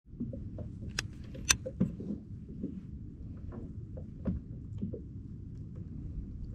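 Low, steady rumble of wind and water around a fishing kayak, with scattered light clicks and knocks of fishing gear; the two sharpest knocks come about one and one and a half seconds in.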